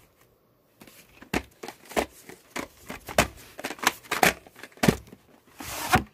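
Plastic VHS clamshell cases being handled: an irregular run of clicks, taps and knocks as they are picked up, turned over and set down, with a brief rubbing or sliding sound near the end.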